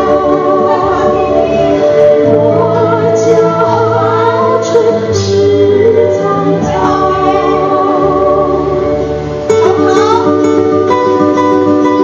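Recorded Mandarin folk-pop song sung by two women in duet, over guitar and bass accompaniment. About nine and a half seconds in, after a short dip, the sung line gives way to a strummed guitar passage.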